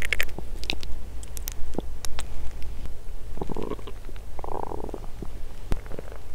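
An empty stomach growling after a 22-hour fast, picked up close to the belly: a low steady rumble with two short gurgles about three and four and a half seconds in, and a few faint clicks.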